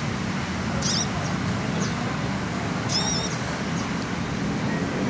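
Tame sunbird giving two short, high, warbling chirps, about a second in and again about three seconds in, with a few fainter high notes between. A steady low hum runs underneath.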